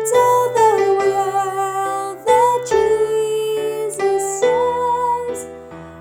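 A mezzo-soprano voice singing a slow melody line in sustained, slightly wavering notes over piano or keyboard accompaniment.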